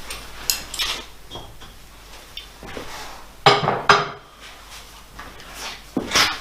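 Metal clinking and clanking, with a few sharp clanks about three and a half and four seconds in and another near the end.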